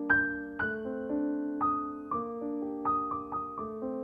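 Gentle background piano music: a slow melody of single struck notes, one about every half second, ringing out and fading over held chords.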